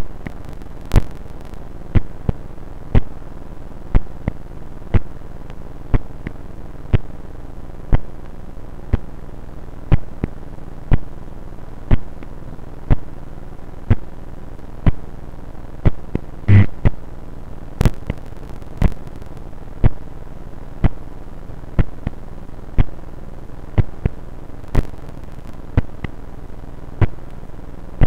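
Heartbeat signal from a heart rate sensor, recorded on an mp3 player: a sharp click-like pulse about once a second, one per beat, over a steady hiss. About halfway through there is one louder thump.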